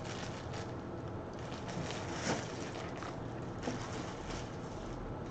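Low, steady background noise with two faint clicks, about two seconds in and again a little later.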